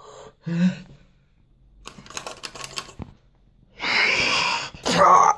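A metal door handle and latch being worked, giving a quick run of clicks and rattles, followed about four seconds in by a loud rasping noise.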